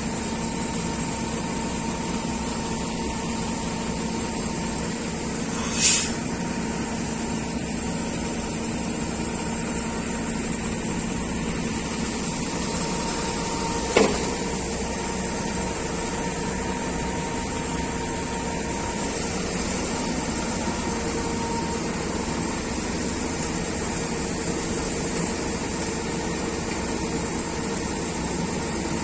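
Kobelco mobile crane's diesel engine running steadily, a constant hum with a few held tones, broken by two short sharp knocks about six and fourteen seconds in.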